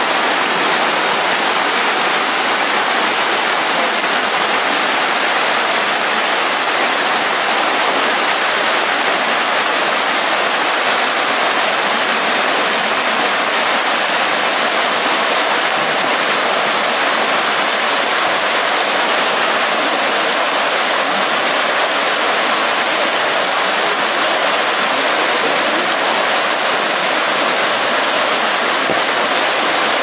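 A thin waterfall falling from a rock ledge and splashing into a shallow plunge pool: a steady, even rushing hiss of falling and splashing water that does not change.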